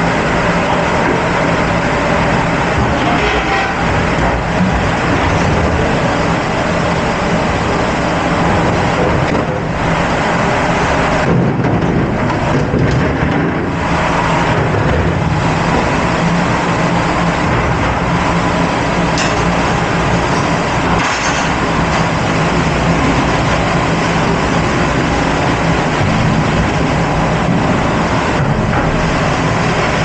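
Commercial conveyor dishwasher running: a steady, loud drone of its pumps and water spray with a constant low hum, and now and then a brief clatter of metal pans or racks.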